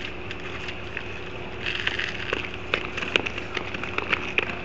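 Outdoor night ambience: a steady low hum under a noise bed, with irregular crackling ticks from about two seconds in.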